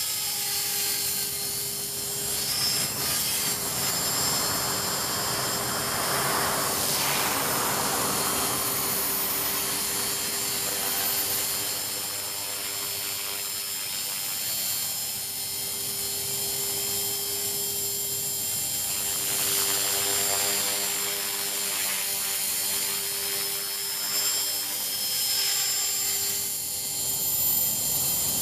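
Align T-Rex 450 Pro electric RC helicopter in flight: the steady high whine of its electric motor and drive gears with the whir of the spinning main and tail rotors, swelling and fading a few times as it manoeuvres.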